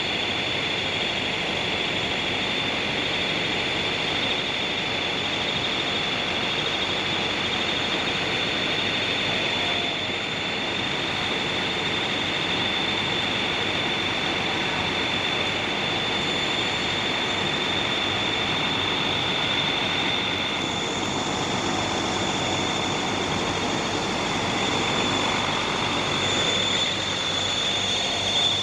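Steady running noise of idling buses, with a thin high whine held over it.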